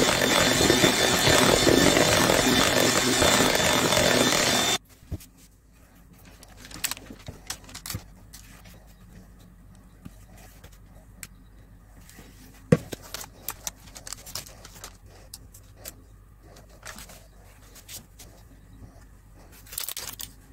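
Electric mixer beating thick chocolate cake batter in a bowl, running with a steady high whine, then switched off abruptly about five seconds in. After it stops, quiet scraping and light knocks as the batter is scraped out of the bowl and spread on a paper-lined baking tray with a spatula.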